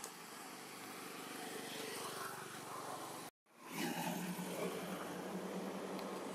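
Steady background hum of distant vehicle traffic. The sound cuts out completely for a moment about halfway through, then fades back in with a steadier low hum.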